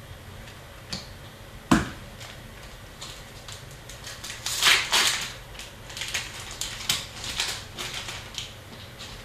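A single knock, then a hockey card pack's foil wrapper crinkling and tearing as it is pulled open by hand.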